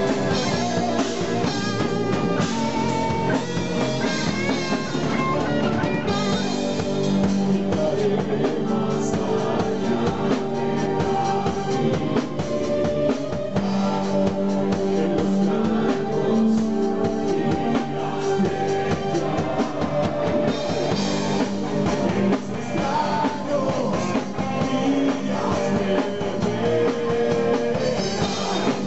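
Live heavy metal band playing: electric guitars and a drum kit, with a singer's vocals over them.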